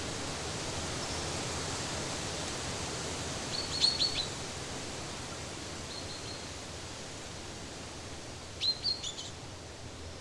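Small birds chirping: two brief clusters of quick, high notes, about four seconds in and again near nine seconds, over a steady background hiss.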